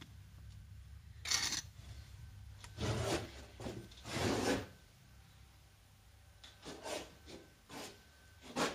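A series of short, irregular rubbing or scraping strokes, about six of them, during renovation work.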